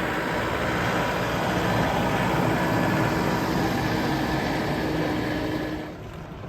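Farm tractor engine running steadily, dropping off sharply about six seconds in.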